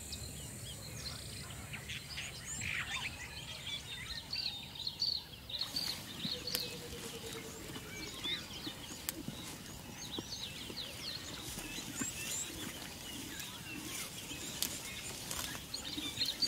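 Many small birds chirping in quick repeated calls over a steady outdoor background; the background changes abruptly about five and a half seconds in, and a brief low wavering call comes soon after.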